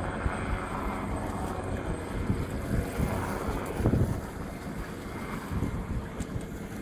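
Wind buffeting the microphone in gusts, the strongest about four seconds in, over the steady running of a boat engine at low speed.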